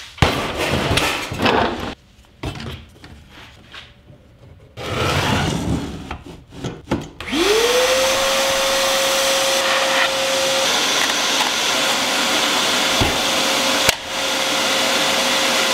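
Irregular handling knocks and rustles, then about seven seconds in a Ridgid shop vacuum switches on: its motor whine rises quickly and settles into a steady whine over a loud rushing hiss. A short click near the end.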